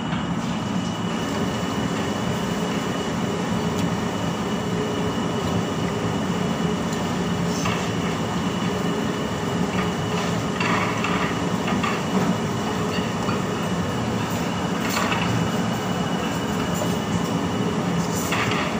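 A steady, loud mechanical drone with a thin constant high tone running under it, and a few brief crunchy bursts from chewing battered fried eggplant.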